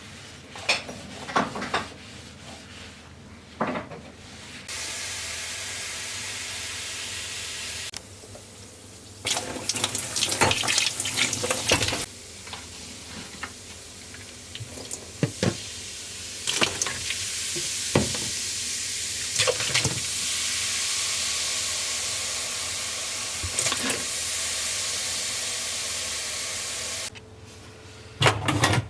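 A water tap running into a sink in two long spells, with dishes clinking and clattering between and over the running water.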